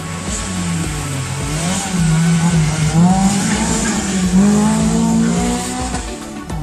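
Suzuki Swift Sport rally car's four-cylinder engine revving hard as the car passes, its pitch climbing and dropping again and again through gear changes.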